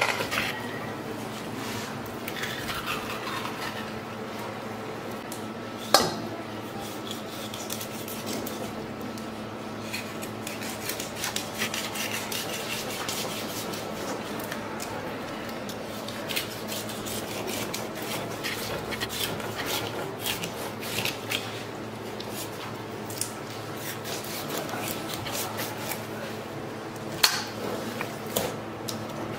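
Kitchen knife scraping and cutting a whole sturgeon on a plastic cutting board, with many small clicks and scrapes of the blade. Two sharp knocks stand out, one about six seconds in and one near the end.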